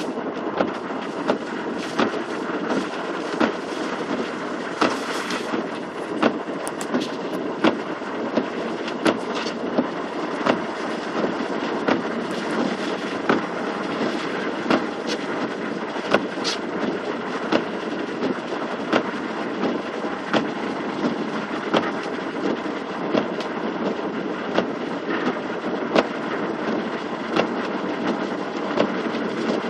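Car driving through flood water, heard from inside the cabin: a steady rush of water and tyres with frequent short knocks and slaps.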